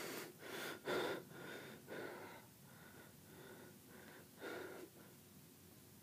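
52-inch Apollo ceiling fan running, with a faint high chirp repeating about twice a second. A few short, louder bursts of noise come through, the loudest about a second in.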